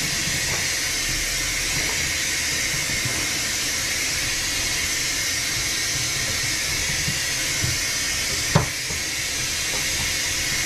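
Steady hiss of food cooking on the stove, with one light knock about eight and a half seconds in as a potato slice is set into the glass baking dish.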